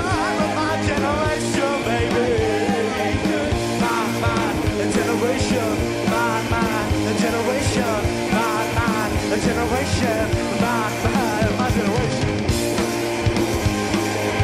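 Rock band playing loud, driving punk-rock music with electric guitars and drums, a wavering lead line riding over the top.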